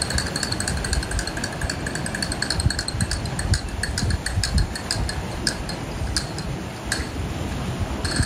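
Wind buffeting the microphone: an uneven, gusty low rumble. Faint steady high tones and scattered clicks thin out about halfway through.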